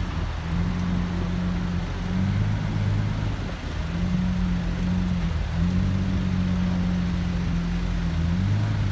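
Pagani Huayra Roadster's twin-turbo V12 running at low revs, its pitch shifting slightly up and down a few times.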